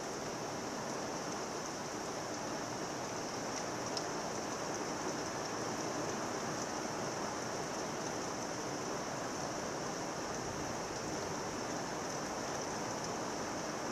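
Heavy thunderstorm rain pouring steadily onto leafy trees, an even, unbroken downpour hiss.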